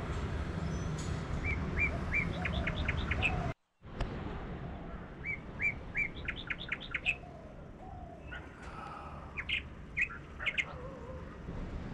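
Small birds chirping in short repeated phrases, a few clipped chirps followed by quick high notes, over a steady low background rumble. The audio cuts out briefly about three and a half seconds in.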